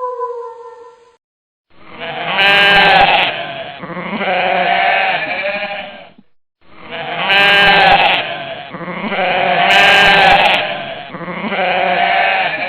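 An animal calling: a run of pitched, wavering calls about four seconds long, then the same run again after a short gap.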